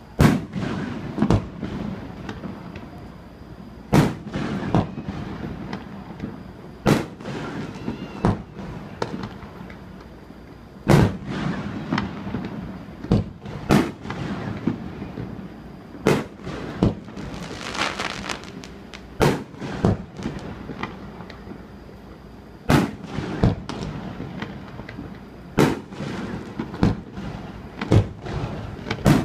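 Fireworks display: aerial shells going off in irregular succession, sharp bangs every one to three seconds. A stretch of dense crackling comes just past the middle.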